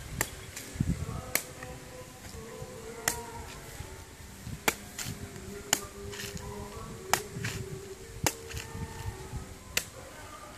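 Machete chopping into a green coconut's husk: about eight sharp, separate strikes, roughly one every second to second and a half.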